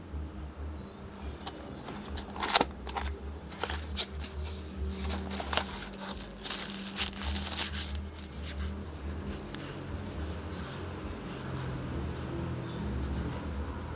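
A small cardboard phone box handled and opened by hand: a run of sharp clicks, flap scrapes and paper rustling, with the densest rustling about seven seconds in as the phone comes out of the packaging. After that the handling is quieter, over a low steady hum.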